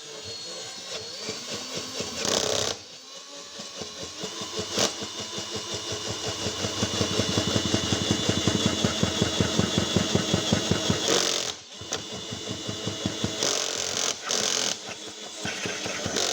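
Handheld power tool running as it bores out the plastic seal seat of a washing machine tub half so the seal will fit, stopping briefly a few times. It has a fast chatter in the middle stretch as the cutter bites the plastic.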